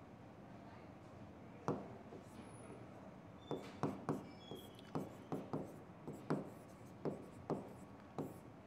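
A stylus tapping and scraping on the glass of an interactive display as words are written: a single sharp click about two seconds in, then a quick, uneven run of a dozen or so clicks through the second half.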